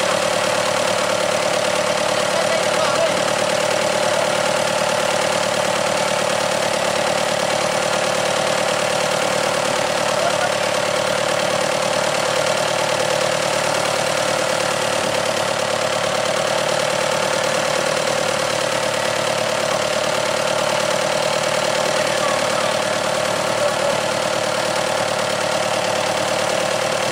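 Boat engine idling steadily, an unbroken drone with a strong steady hum.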